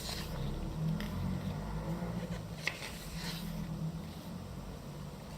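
Pages of a thick photo magazine being turned by hand, with short papery rustles and flicks over a low steady hum.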